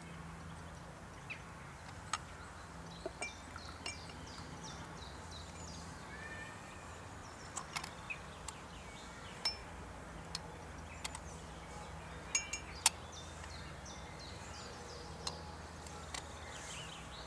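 Scattered light clinks of an aluminium Bialetti moka pot knocking against ceramic cups as coffee is poured out, with faint bird chirps in the background.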